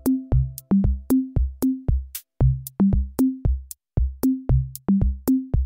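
Background electronic music: a quick, even drum-machine beat of short kick-drum and pitched bass hits, about four to five a second, with a couple of brief gaps.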